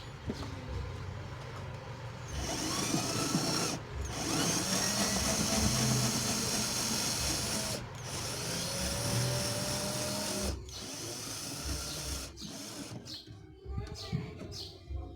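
Cordless drill running in three runs, backing out a wiper motor mounting screw, its pitch rising and falling with the trigger; it stops about ten seconds in, leaving a few small clicks.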